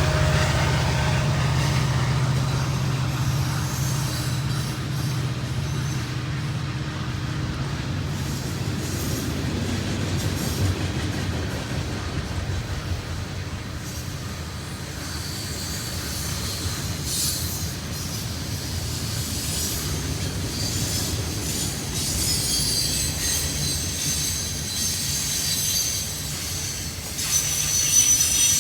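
Railroad cars rolling past with a steady low rumble. A high-pitched wheel squeal joins about halfway through and grows stronger near the end.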